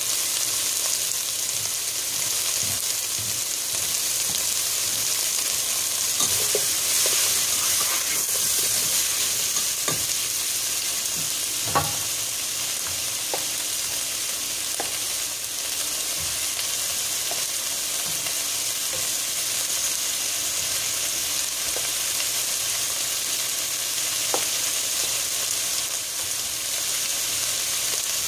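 Chopped onions, bell peppers and tomatoes sizzling in oil in a nonstick pot: a steady high hiss, with a spatula now and then scraping and tapping against the pot. One sharper knock comes about twelve seconds in.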